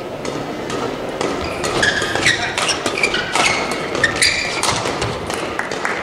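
Men's doubles badminton rally: rackets striking the shuttlecock in quick exchanges, with short high squeaks of court shoes on the playing mat as the players move.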